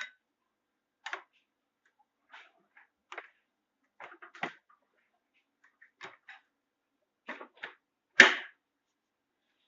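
A scattered series of light clicks and taps, then one sharp, louder click about eight seconds in.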